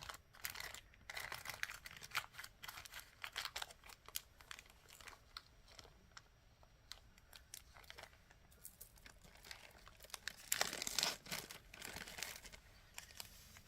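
Plastic bead packaging crinkling as it is handled, with small clicks and taps of beads. The crinkling is loudest for about a second near eleven seconds in.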